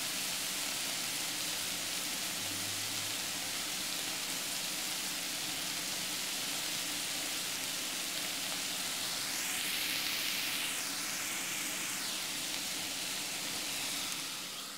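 Sliced onions sizzling in hot oil in a pot as they sauté: a steady hiss that drops away near the end.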